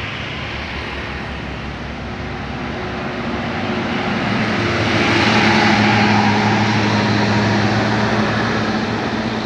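A heavy bus engine running as the bus passes, with a steady low drone and a hiss that grow louder to a peak about halfway through, then ease off slightly.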